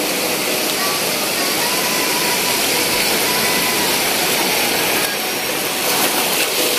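Surf and wind on a shallow beach, a steady rushing noise; the wash of a wave grows louder and crackles about five seconds in.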